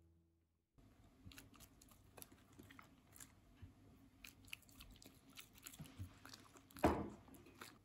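Close-up chewing of crunchy food: irregular small crisp crunches and clicks, with one louder crunch near the end.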